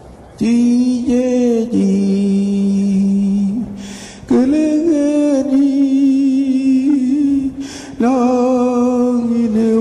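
A man's voice chanting without accompaniment in three long phrases, each rising at the start and then held on a low sustained note. The phrases begin about half a second in, about four seconds in and about eight seconds in.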